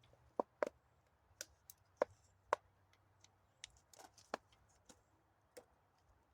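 Irregular sharp clicks and light taps of fishing tackle being handled while rigging a line, about a dozen, the loudest in the first couple of seconds.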